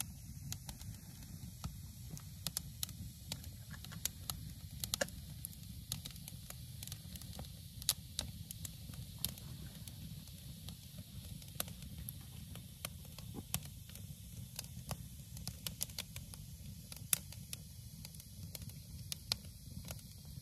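Wood campfire crackling, with frequent sharp, irregular pops over a steady low rush.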